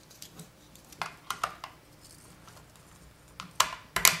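Hard plastic clicks and knocks as a robot kit's plastic battery pack is pressed and snapped into its plastic base: a few light clicks about a second in, then louder snaps near the end.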